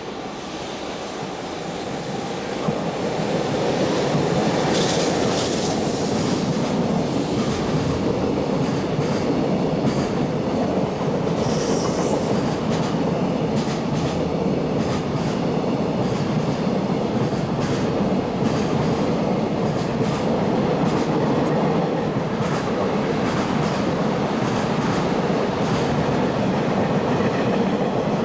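Freight train rolling past close by: the wagons' wheels clatter over the rail joints with a steady rumble, and brief high wheel squeals come twice. It grows louder over the first few seconds as it draws in, then stays level.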